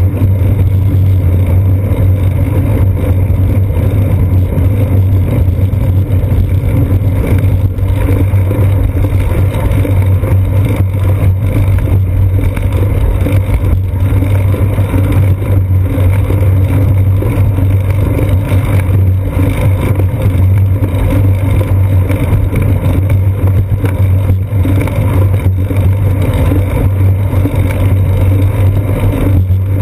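Steady, loud rumble of road vibration and wind picked up by a seat-post-mounted GoPro Hero 2 as the bicycle rolls along a paved path, with a constant deep hum and no letup.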